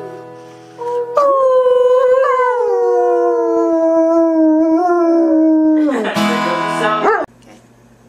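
German Shepherd howling along to a played acoustic guitar. One long howl starts about a second in and slides slowly down in pitch. A shorter, louder howl follows near the end and cuts off suddenly. Guitar notes ring underneath.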